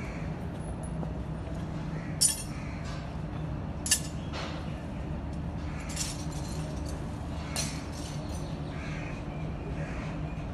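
A steady low machine hum, with four short, sharp sounds standing out over it, the first two the loudest.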